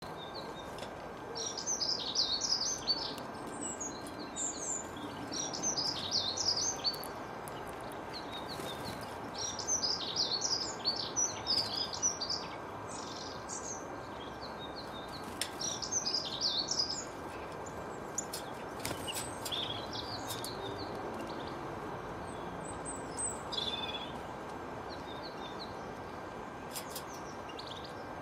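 Small songbirds twittering in repeated bursts of rapid, high notes, over a steady background hiss.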